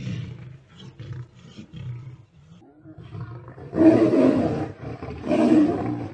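Big cats fighting: low growling, then two loud roars about four and five and a half seconds in, from lions locked in a fight.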